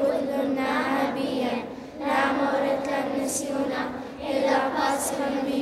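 A group of children singing a prayer together in unison, in long held phrases with short breaks between them.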